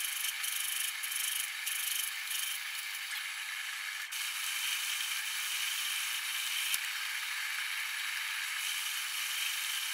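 A TSB 20 lathe running while its tool turns a bronze bushing: a steady whir from the spindle and drive, with a crackling rattle of bronze chips breaking off, more uneven in the first few seconds.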